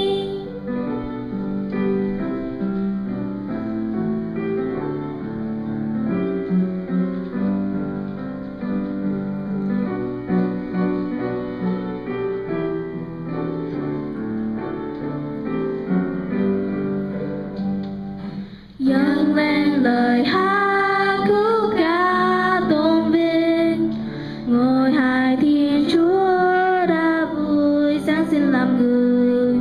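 A song with keyboard accompaniment. An instrumental passage of piano-like notes runs until a brief break about nineteen seconds in. After the break a voice sings the melody over the accompaniment.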